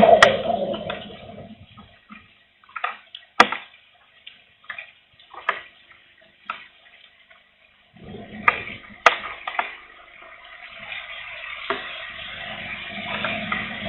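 Wind and light rain: a rushing gust that dies away within the first two seconds, then scattered single raindrops ticking close to the microphone, and the rush of wind and rain building again from about eight seconds in.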